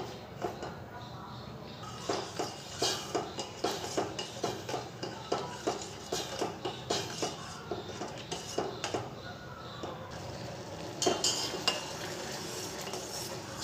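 Metal spoon stirring sugar and water in a stainless steel saucepan: repeated light, irregular clinks and scrapes of the spoon against the pan as the sugar dissolves into syrup.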